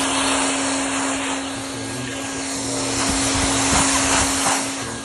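Hand-held hot-air plastic welding gun running, its blower giving a steady hiss with a steady motor hum, as it heats a seam of sunshade fabric to weld it shut.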